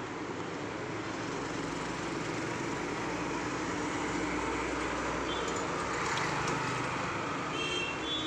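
Steady background vehicle and traffic noise, growing gradually louder towards the middle and easing near the end.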